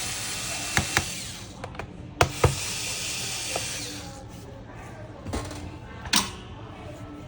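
Electric screwdriver whirring in two bursts of about two seconds each as it backs out the laptop's bottom-case screws, with clicks and knocks of the bit, screws and tools against the case. A sharper knock comes about six seconds in.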